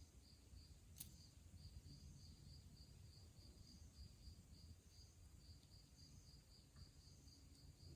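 Near silence with faint insect chirping, a steady train of high pulses about three to four a second, over a low rumble; a single faint click about a second in.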